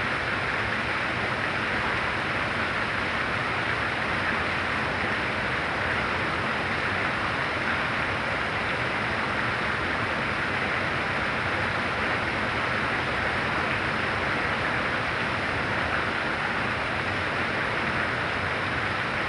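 Heavy rain pouring down in a steady, dense hiss with no distinct drops or breaks.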